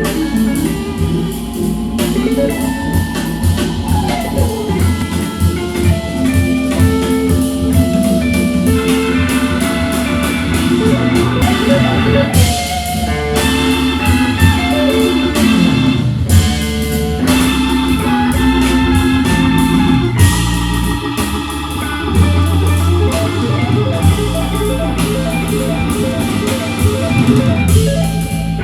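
Rock music with guitar, organ and drums, played from a vinyl record.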